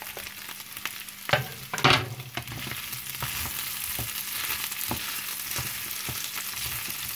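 Sliced onions tipped from a wooden cutting board into a pan of frying pork pâté strips, with two loud knocks about one and two seconds in. Then the pan sizzles steadily while a wooden spatula clicks and scrapes, stirring the onions in.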